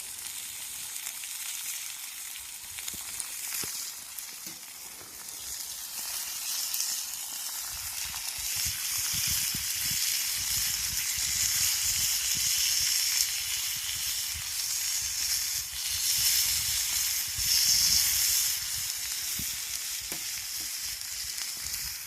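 Steady sizzling hiss of food frying, growing louder after about eight seconds and easing off again near the end.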